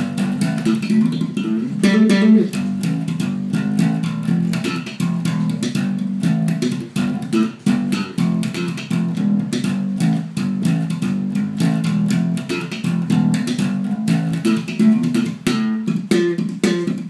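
Electric bass guitar played solo in a fast, busy run of plucked notes, many to the second, with the pitch jumping about constantly in the instrument's upper-middle range.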